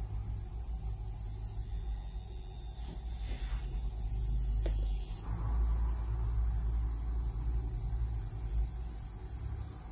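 A low, steady rumbling hum, with a faint high whine that stops about halfway through.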